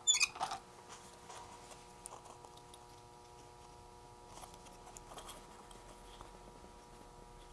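Hands handling small electronic parts while fitting capacitors into a kit circuit board: a brief scratchy rustle, then faint scattered taps and clicks. A faint steady hum of a few thin tones runs underneath.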